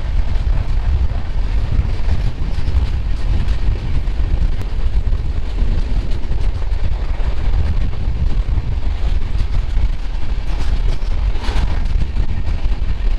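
Heavy wind buffeting on a microphone held out of a moving passenger train, over the steady running noise of the train's coaches.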